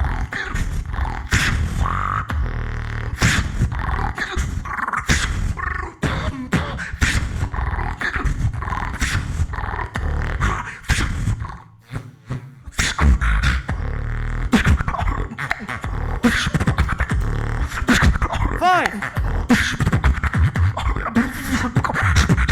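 Beatboxing: deep mouth bass under sharp snare and hi-hat clicks in a fast rhythm, with a brief break about halfway through and a wavering pitched vocal sound shortly before the end.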